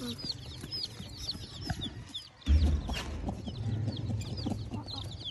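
A crowd of domestic chicks peeping, a dense stream of short, high chirps that fall in pitch. About halfway through there is a low thump, and a low hum runs under the peeping after it.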